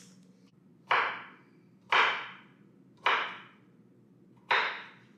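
Chef's knife chopping pickles on a wooden cutting board: four sharp chops about a second apart, each ringing out briefly.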